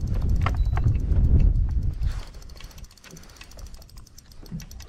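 Spinning reel clicking fast and evenly as a hooked fish is played and reeled in. A low wind rumble sits under it for about the first two seconds.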